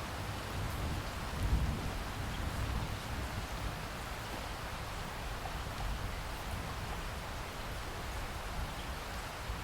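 Steady rain falling, with a low rumble of thunder underneath that swells about a second and a half in.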